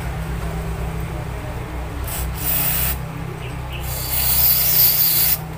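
Aerosol can of electronic contact cleaner sprayed through its straw nozzle onto spark plugs to clean them: a short hiss about two seconds in, then a longer hiss of about a second and a half that cuts off sharply.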